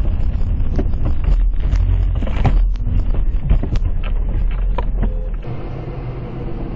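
A vehicle's heavy low rumble, thick with many sharp knocks and rattles. About five and a half seconds in, it changes abruptly to a quieter, steadier rumble.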